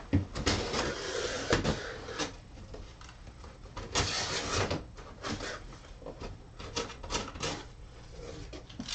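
Tall cardboard guitar box being opened and handled: rustling and scraping of cardboard in two longer stretches, near the start and about four seconds in, with scattered knocks and taps between.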